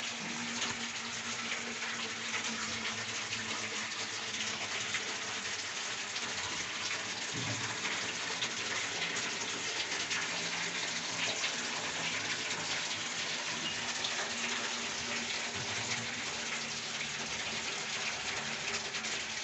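Hands sloshing through buttermilk and squeezing lumps of freshly churned butter: a steady wet splashing and dripping.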